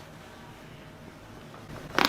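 Quiet room tone with a faint steady hum, then right at the end a single sharp crack from a chiropractic thrust on the upper thoracic spine.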